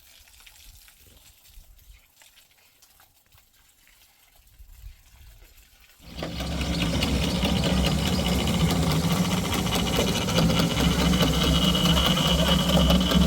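A motor starts abruptly about halfway through and runs steadily, with a low hum and a high whine; the first half is faint.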